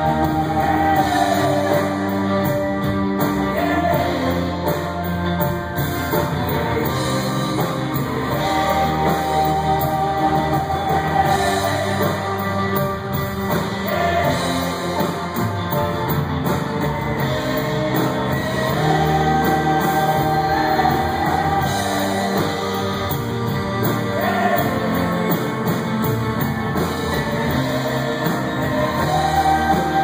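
Live band music: piano, bass guitar, drums and upright bass playing together, with a sung melody held and sliding over them.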